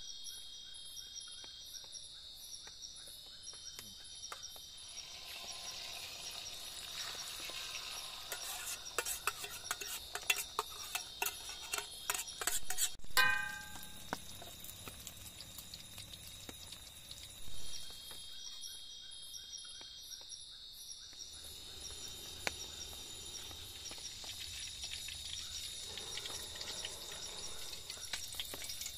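A steady chorus of forest insects, with scattered clicks and knocks of a cooking utensil against a pan as eggs are cooked on the campfire. About 13 seconds in there is one louder, ringing metal clink.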